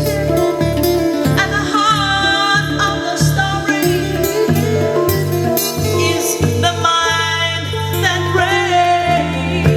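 Live improvised band music: a bass guitar plays a line of short, repeated low notes under guitars, with a wavering melody line above.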